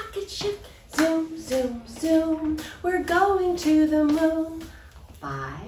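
A woman singing a children's action song, with young children's voices joining in, in held, sung notes. Near the end a voice slides steeply down in pitch.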